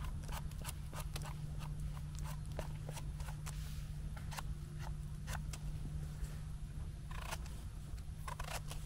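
A pocket knife scraping and trimming the stem of a cep (king bolete), then slicing through it, in short irregular crisp scrapes and clicks over a low steady hum.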